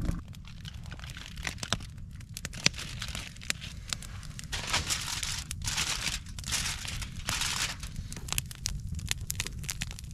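Campfire crackling and popping, with aluminium foil crinkling in bursts in the middle as a foil-wrapped packet is handled and set on the grate over the flames, all over a steady low rumble.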